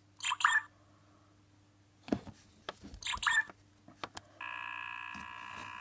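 11th Doctor sonic screwdriver universal remote control playing its electronic sound effects from its small speaker. There are short chirps near the start and about three seconds in, with a knock from handling just after two seconds. About four and a half seconds in comes a steady buzzing whine lasting about a second and a half.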